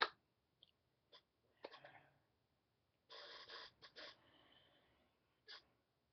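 A man's faint breath and mouth noises. A sharp click at the start, scattered small clicks, and a half-second rush of breath about three seconds in.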